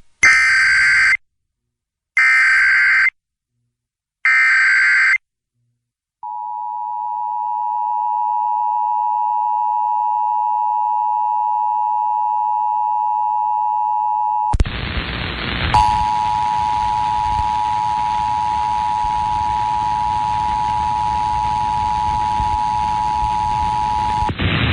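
Emergency Alert System test signal on FM radio. It opens with three one-second bursts of the warbling digital SAME header, separated by short silences. Then the steady two-tone attention signal (853 and 960 Hz) sounds continuously, with a loud hiss of static joining it about halfway.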